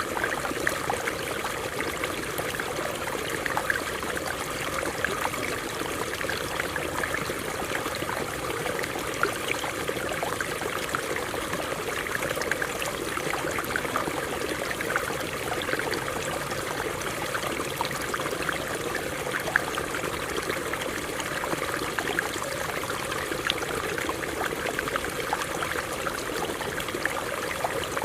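Stream water running over rocks: a steady rushing and splashing with many small trickling drops.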